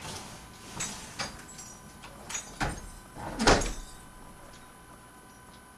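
A few light knocks and clicks, then a closet door shutting with a thump about three and a half seconds in.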